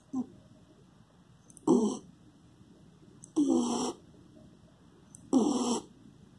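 A sleeping dog snoring, three snores about two seconds apart, each with a wavering pitched tone and a hissy edge.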